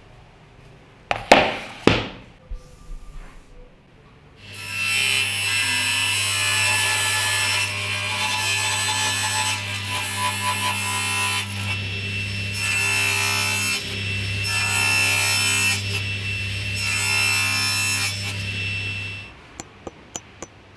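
Table saw running with a steady motor hum, making several passes through thin boards; each cut swells and fades over the hum. A couple of sharp knocks come about a second in, and the saw sound cuts off suddenly near the end, followed by a few faint clicks.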